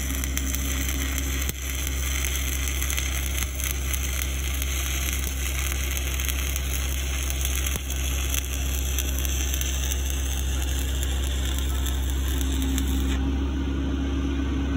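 Stick-welding arc of a 1/8-inch 7018 low-hydrogen rod burning steadily at about 120 amps as it is dragged along the joint, then breaking near the end. A steady engine drone runs underneath.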